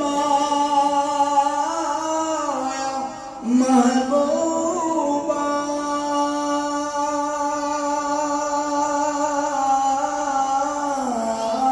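A man singing a naat, an Islamic devotional song, holding long drawn-out notes with slow ornamented turns in pitch. He pauses briefly for breath about three seconds in, and his voice slides down in pitch near the end.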